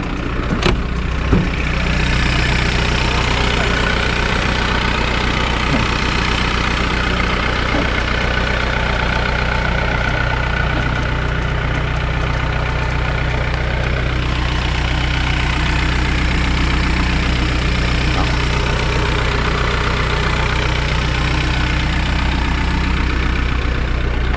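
Car engine idling steadily, with a couple of light clicks about a second in.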